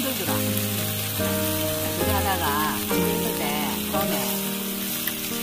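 Pork belly sizzling steadily on a tabletop grill, with background music playing over it.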